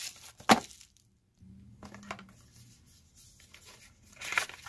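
A small cardboard product box being handled and opened by hand: a sharp knock about half a second in, then small ticks and a scraping rustle of card near the end.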